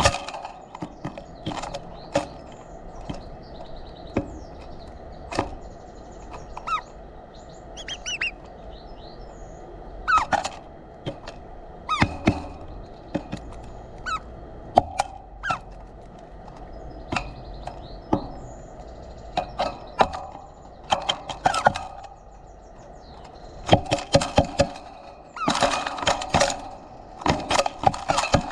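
Birds pecking seed at a feeder right at the microphone: irregular sharp taps and clicks, coming in quick clusters near the end, with a few short chirps about eight seconds in.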